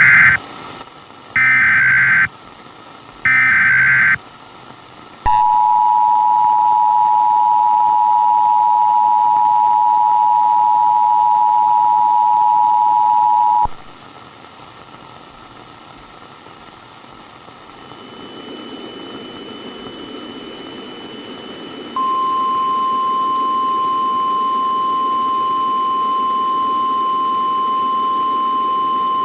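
Emergency Alert System tones: three short bursts of screeching SAME header data, then the two-tone EAS attention signal held for about eight seconds. This is followed by radio static hiss, and then a single steady alarm tone that comes in about two-thirds of the way through and holds.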